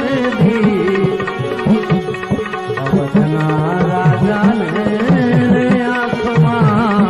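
Instrumental interlude of a Gujarati devotional bhajan: tabla playing a fast rhythm, the bass drum's strokes gliding in pitch, under a held, wavering melody on an accompanying instrument.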